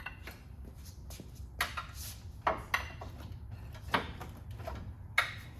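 Irregular sharp knocks and clanks, about six of them at uneven intervals, over a low steady hum: tools and metal parts being handled while the engine and transmission are worked free of the transmission mount.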